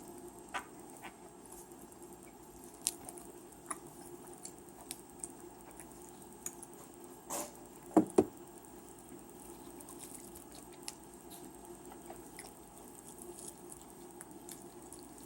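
Someone eating chicken wings close to the microphone: scattered small wet clicks and mouth smacks while chewing. Midway there is a brief rustle, then two sharp thumps in quick succession, the loudest sounds.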